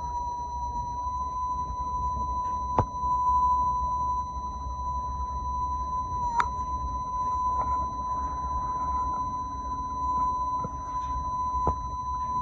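A steady, high-pitched buzzing tone over a low hum, with a few faint clicks about 3, 6 and 11 seconds in. It is the strange buzz, called a metallic drone, that the recording's owner attributes to an unidentified flying object overhead.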